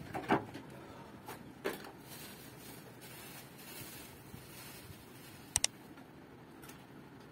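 A few soft knocks and rustles in the first two seconds over a light hiss, then a quick, sharp double mouse click about five and a half seconds in, the click sound of an animated like-button overlay.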